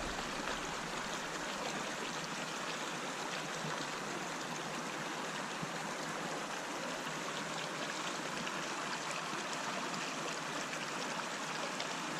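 A small, shallow mountain stream running over rocks, a steady rushing and trickling of water.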